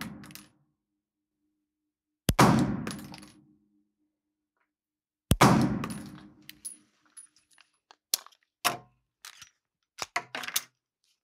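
Two shots from a Girsan MC9 9mm striker-fired pistol, about three seconds apart, each ringing on in the hard-walled indoor range. Near the end come a series of light clicks and clanks as the pistol is handled on the bench.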